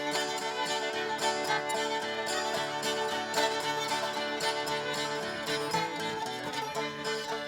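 Acoustic string band playing a traditional tune, with fiddle over plucked strings.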